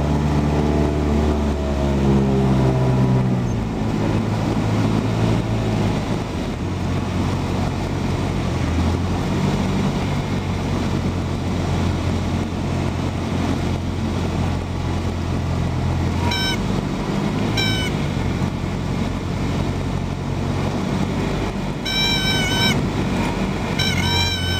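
Cessna 172 engine heard from inside the cabin, its pitch falling as the throttle comes back for landing, then running at low power with steady airflow noise. Two short high chirps come about two-thirds of the way in, and music fades in near the end.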